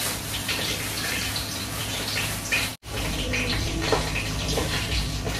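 A steady rushing hiss, like running water, with a low hum under it, and short crackles and clicks from a plastic bag being handled and a spoon scooping ground ogbono. The sound cuts out for an instant about halfway through.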